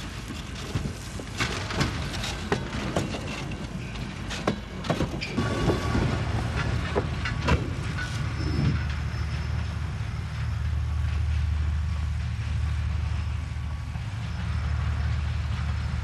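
Railway freight wagons rolling in a shunting yard: repeated sharp metallic clanks and knocks with brief high-pitched squeals for about the first half, giving way to a steady low rumble.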